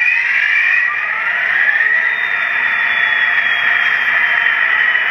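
Sound decoder in an HO-scale Walthers Proto 2000 GP60 model locomotive playing its diesel engine sound through the model's small speaker: a steady whine of several high tones, with one faint tone slowly falling.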